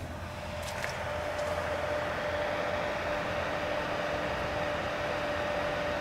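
Cooling fan of a 12-volt Coleman thermoelectric cooler running: a steady whirring hum with a faint steady whine, growing a little louder over the first second or two.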